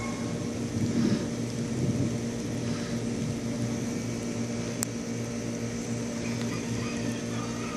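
A steady machine hum at a constant pitch, like a motor or engine running, with brief louder swells about one and two seconds in and a single sharp click about five seconds in.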